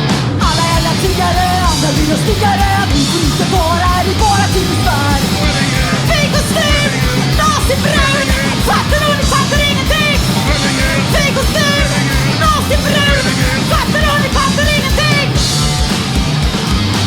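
Punk rock band playing live: fast, driving drums and distorted guitars, with a high bending melody line over them.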